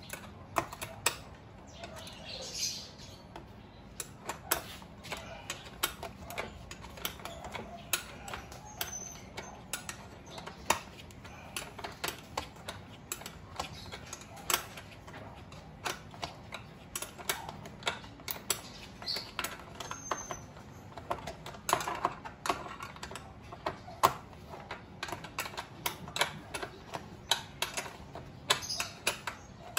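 Ratchet socket wrench turning a bolt on a motorcycle's plastic rear fender, giving a string of sharp clicks at uneven spacing as the bolt is worked tight.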